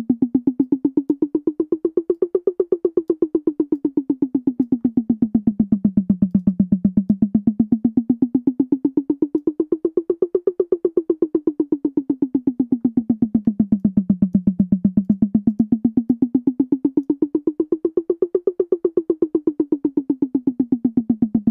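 A sampled tom drum repeating in rapid, even hits while its pitch glides up and down in a slow cycle, rising to a high point three times. Its pitch and pan are being moved by automation envelopes to make it seem to circle through space.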